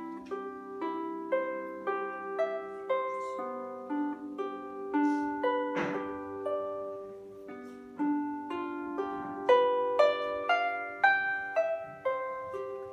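Solo harp played by plucking: a flowing run of single notes over lower ringing notes that overlap into chords, the playing growing louder about eight seconds in.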